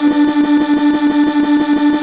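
Music: one held note with a fast, even pulse running under it.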